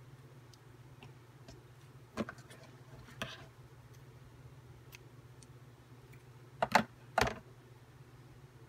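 A few sharp taps and clicks from craft pieces being handled and set down on a cutting mat, with a close pair and one more about two-thirds of the way through, over a steady low hum.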